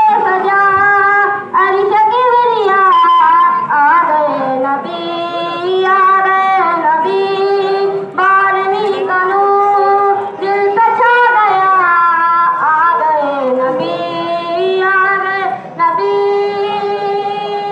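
A high voice singing a naat, a devotional song, in long held notes with ornamented glides between them and short pauses for breath between phrases.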